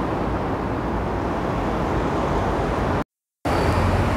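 Steady city street traffic noise, a continuous low rumble of passing road vehicles, broken by a brief dead-silent gap about three seconds in.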